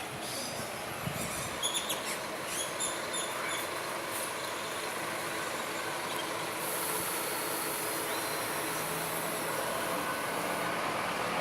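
Scania-chassis Irizar i5 coach running as it pulls out of the terminal, its engine sound slowly growing louder, with a high hiss lasting about four seconds in the middle.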